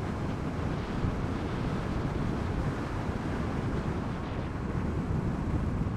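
Steady wind rush over the microphone with tyre and road noise from a LiveWire S2 Del Mar electric motorcycle cruising on a highway. There is no engine note, only an even rushing noise.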